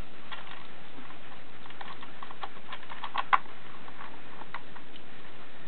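Irregular light clicks and taps of plastic on plastic as a GPS-tracker holder is handled and fitted against a drone's plastic frame. There is a small cluster of sharper clicks about three seconds in.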